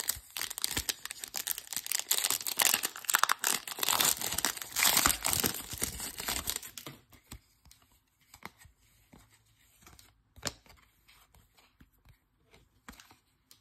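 Foil wrapper of a Panini Prizm baseball card pack being torn open and crinkled for about seven seconds. After that come faint ticks and short slides of the cards being handled.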